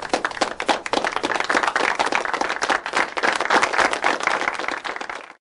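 Audience applauding, a dense patter of many hands clapping that cuts off abruptly near the end.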